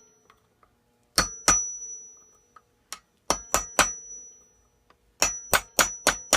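Hammer striking a steel punch with sharp, ringing metallic clangs, driving a rusted key out of the engine shaft. Two blows, a single one, then three, and from about five seconds in a quick steady run of about four blows a second.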